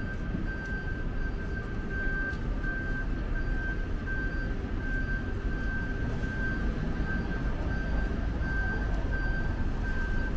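City street traffic rumbling steadily, with an electronic beeper pulsing evenly about twice a second throughout.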